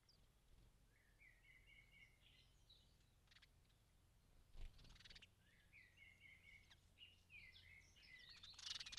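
Faint chirping of small birds in runs of short, quick notes, with a brief burst of clicks about halfway and a louder cluster near the end.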